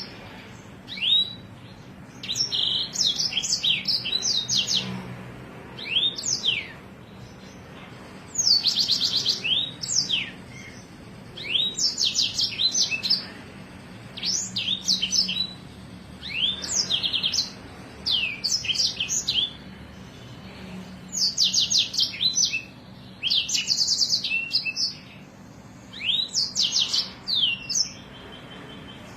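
Songbird singing a series of short, loud phrases of rapid trills and falling whistles, one phrase every second or two with short pauses between them.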